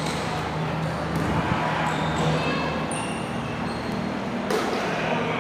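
Sound of a netball match on an indoor court: short high squeaks of shoes on the court floor and a few sharp thuds of the ball, over a steady murmur of voices in the hall.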